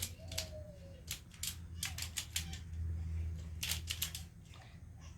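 Plastic Pyraminx (pyramid twisty puzzle) being turned by hand, its pieces clicking in quick irregular runs as it turns freely. A short hum of a child's voice falls in pitch near the start.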